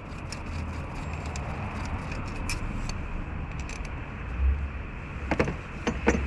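Light metallic clicks and clinks, like tools or parts handled on metal, over a low steady rumble, with a few sharper clicks about five and six seconds in.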